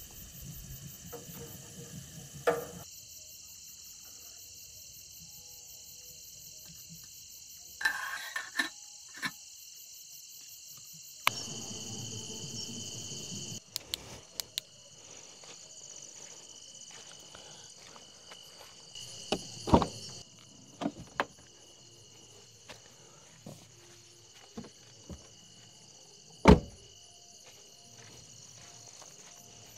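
A steady chorus of night insects chirring at several high pitches, with a few sharp knocks and clicks from handling gear; the loudest come about two-thirds of the way through and near the end.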